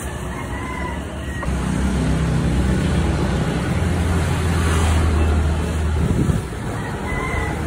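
Street traffic noise with a motor vehicle engine running close by: a low, steady hum sets in about a second and a half in and cuts off about six seconds in.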